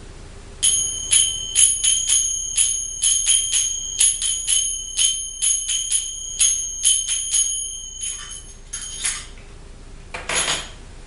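Pair of belly-dance finger cymbals (zills) struck together in an uneven rhythm of about three strikes a second, each strike ringing high and clear. About eight seconds in the ringing stops and a few muted clicks follow, then a short clatter near the end.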